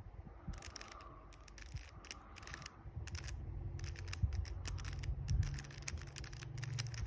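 3x3 Rubik's Cube faces being turned by hand, a quick irregular run of plastic clicks and clacks as an algorithm is executed. A low steady hum joins about three seconds in.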